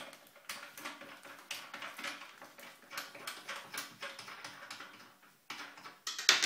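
Irregular small clicks and rattles as a toilet seat's hinge fixing is unscrewed by hand from below, with a louder clatter near the end.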